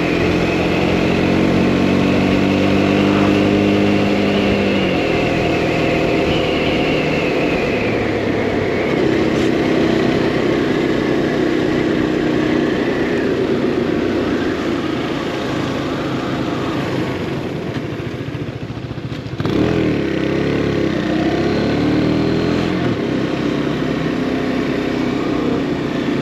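Husqvarna Svartpilen 401 single-cylinder engine running under way, its pitch rising and falling with throttle and gear changes, over wind rush on the helmet microphone. About two-thirds in the engine eases off and quietens, then picks up sharply again.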